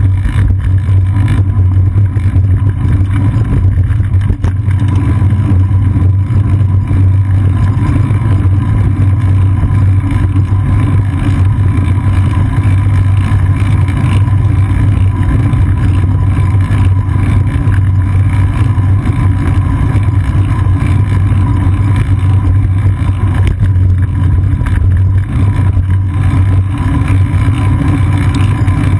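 Steady, loud low rumble of a moving bicycle picked up by a GoPro Hero 2 mounted on the seat post: road vibration through the mount and wind buffeting the camera.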